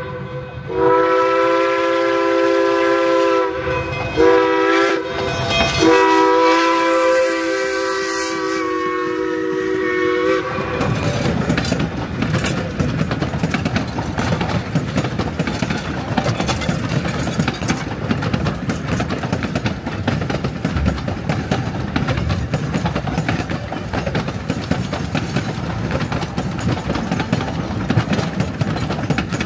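Steam whistle of K-28 narrow-gauge locomotive 473 sounding a chord in several blasts: a long one, a short one, then a final long blast ending about ten seconds in. After that comes the steady rumble and wheel clatter of the train running past.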